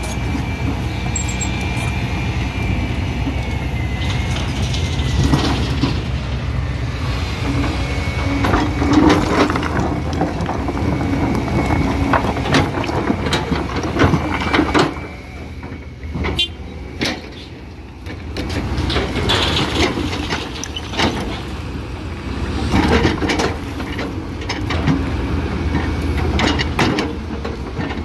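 Kobelco hydraulic crawler excavator's diesel engine running under load, with repeated clanks and crashes of stone rubble as the bucket breaks up and drags a stone masonry wall. The engine drops quieter for a few seconds about halfway through, then picks up again.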